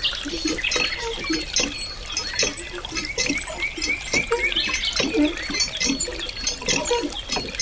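A thin stream of water pouring from a small pipe spout onto a chute and trickling into a shallow pool, a continuous run of small splashes.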